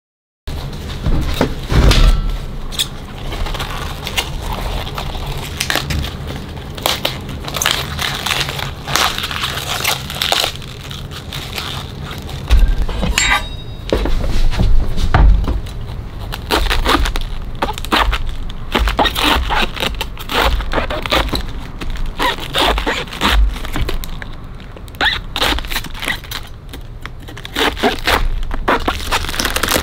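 Crisp crunching and crackling of a raw whole cabbage as a kitchen knife cuts into it around the core on a wooden cutting board, with irregular snaps of the leaves and a few heavier thumps.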